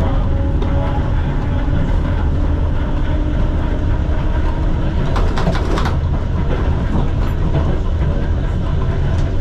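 Vintage museum tram running along the track: a steady rumble, with a short run of clicks about five seconds in.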